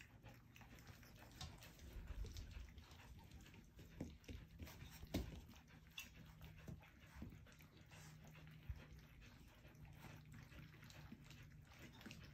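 Puppies nearly four weeks old lapping and slurping their first soft food from a stainless steel saucer pan: faint, irregular wet clicks and smacks, a few louder than the rest, over a faint steady low hum.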